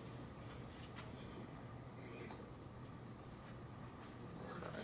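A cricket chirping in a high, even pulse of about ten beats a second.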